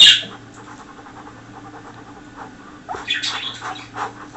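Pet cockatiel giving one short, loud, harsh call right at the start, then soft clicks and a couple of shorter harsh sounds about three seconds in.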